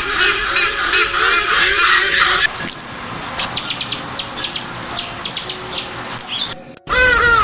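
A flock of farm poultry calling over one another, dense and overlapping, for the first couple of seconds. Then a run of quick sharp clicks, and after a sudden cut near the end a single bird's pitched call.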